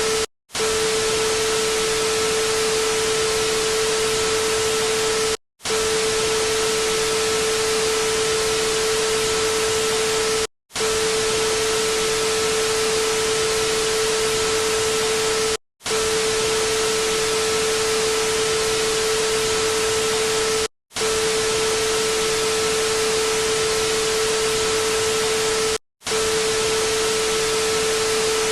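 Electronic sound effect: a steady mid-pitched tone over loud hiss, looping with a brief silent break about every five seconds, six times in all.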